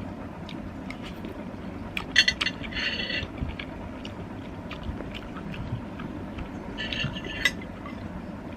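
Spoon clinking and scraping in a bowl of soup during eating, in two short spells about two seconds in and about seven seconds in, over a steady low background noise.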